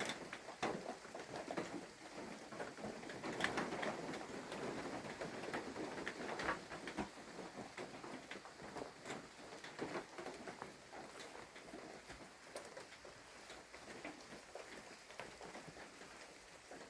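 Heavy rain pattering on the shelter, with many irregular drips and small knocks.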